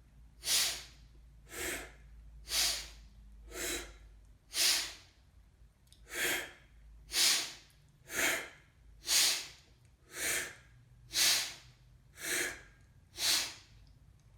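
Forceful rhythmic breathing in a kundalini yoga pranayama: short, hard rushes of air through the mouth or nose, about one a second, kept up at an even pace.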